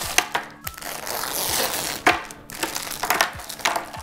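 Crinkly plastic wrapping rustling while small hard plastic toy pieces click and clatter onto a hard tabletop as they are tipped out of the container.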